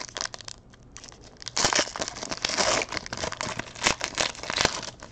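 Foil wrapper of a trading-card pack being torn open and crinkled as the cards are pulled out. The crackling is sparse at first and grows dense from about a second and a half in until near the end.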